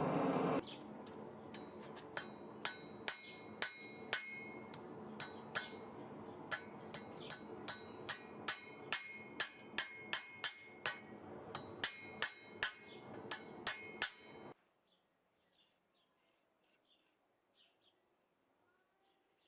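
Hand hammer striking the steel of a pair of leaf-spring blacksmith tongs on an anvil, about two ringing blows a second over a steady background noise, as the tongs are trued up. The hammering stops abruptly about fourteen seconds in, leaving near silence.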